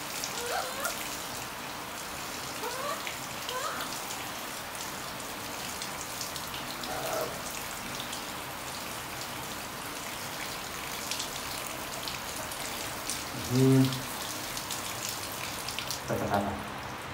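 Shower water running steadily from a handheld shower head, spattering over a wet baby monkey's fur and onto a tiled floor. A few faint short rising squeaks come through in the first half, and a brief low voice-like hum stands out about three-quarters of the way through.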